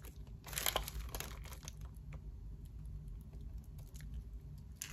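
Paper burger wrapper crinkling and rustling as it is handled, in irregular crackles with a louder burst about half a second in.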